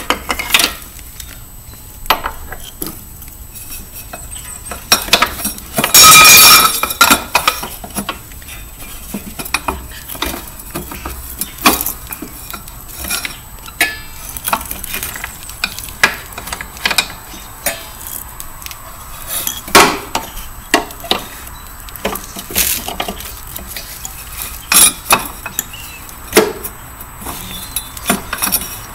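Scattered metallic clinks, taps and knocks from hands working on a small dirt bike's metal frame and add-on exhaust pipe, with a louder rattling burst lasting about a second roughly six seconds in.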